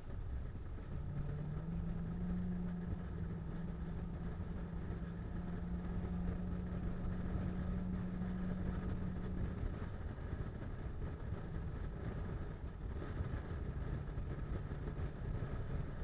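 Car driving at highway speed, heard from inside the cabin: steady engine and road noise. A steady low hum comes in about a second in and stops shortly before the tenth second.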